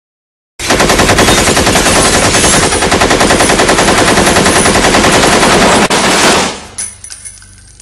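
Machine gun firing one long, rapid continuous burst. It starts suddenly about half a second in and stops after about six seconds, leaving a short fading echo.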